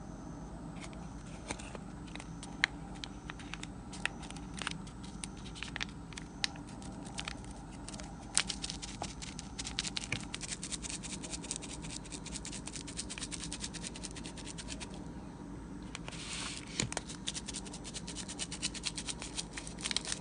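Foil probiotic sachet crinkling and being tapped and shaken as its powder is sprinkled onto chicken and rice: a run of small clicks and scratches that grows denser about eight seconds in.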